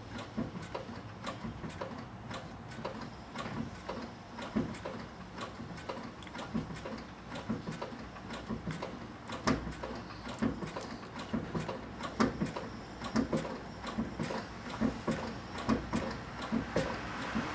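Irregular clicks and short knocks, one or two a second, from a clutch pedal and its linkage being pumped over and over to build pressure in the hydraulic clutch while air is bled from the system.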